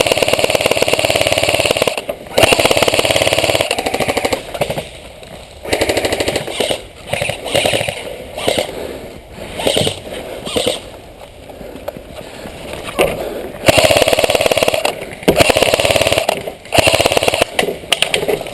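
Airsoft rifle firing on full auto in several bursts of rapid shots, the longest about two seconds, with quieter pauses between them.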